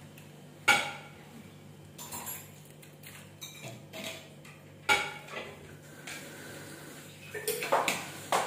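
Dishes and cutlery clinking during a meal: a sharp clink about a second in, another about five seconds in, then a quick run of clinks near the end, over a low steady hum.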